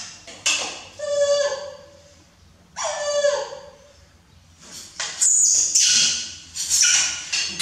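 Baby macaques crying: two high-pitched calls that fall in pitch, about a second and three seconds in, then harsher, noisier cries in the last few seconds.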